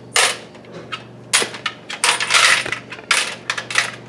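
Coins clinking and sliding in a candy vending machine's coin tray as it is tipped and handled, in about five separate bursts, the longest about two seconds in.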